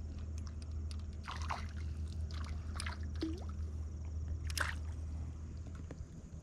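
A small bass splashing at the water's surface as it is reeled in on a spinning rod: a few short splashes, the loudest about four and a half seconds in. A steady low rumble runs underneath.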